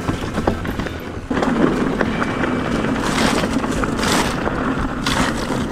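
Mountain bike being ridden over a stony trail: tyres rolling on rock and the bike rattling, a rough noise that grows louder about a second in, with three brief louder rushes later on.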